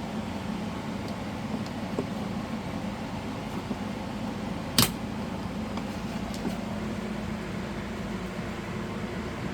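Faint small clicks and one sharp click just under halfway through, from screws and plastic trim clips being worked on a door, over a steady low hum.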